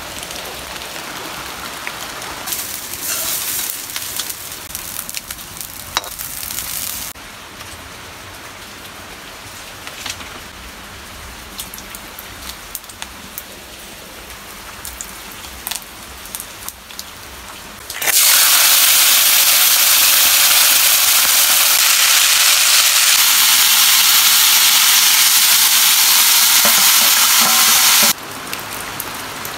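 Greens sizzling loudly in hot oil in a wok over a wood fire for about ten seconds, stopping abruptly. Before that there is a quieter steady hiss of rain with scattered light clicks and crackles.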